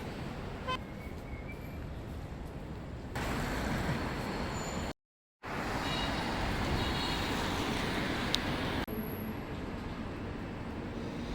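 City street traffic noise: a steady hum of passing vehicles, with a few short faint tones near the start. It changes abruptly about three and nine seconds in and drops out to silence for half a second about five seconds in.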